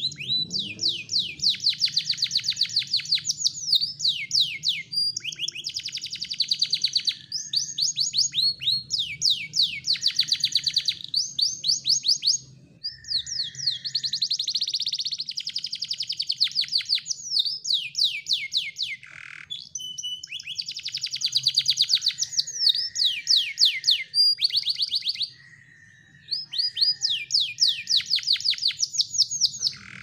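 Domestic canary singing a long song of fast trills and rolling high phrases, broken by a couple of short pauses.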